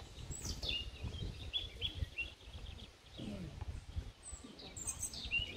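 Songbirds chirping and twittering, with short repeated notes and quick downward-sliding whistles, over a low outdoor rumble.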